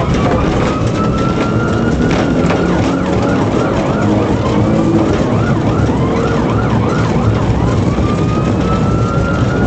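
Police car siren sounding over engine and road noise. It goes from a slow wail to a fast yelp, about three quick sweeps a second, about three seconds in, and returns to a slow rising wail near the end.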